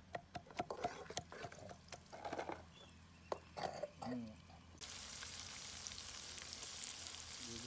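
Wooden pestle pounding garlic and ginger in a wooden mortar: a fast run of sharp knocks that thins out to scattered thumps. About five seconds in, oil starts sizzling steadily in a wok of browned onions.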